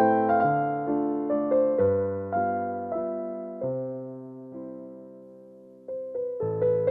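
Background music: a soft piano or electric piano melody, its notes slowing and fading almost away before a new phrase begins about six seconds in.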